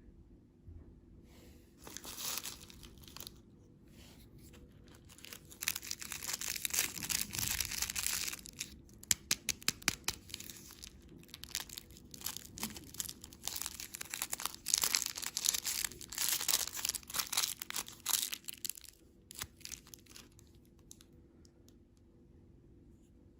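Plastic candy packaging crinkling and tearing as it is handled and opened, in a long run of crackles and sharp crinkles that fades out near the end.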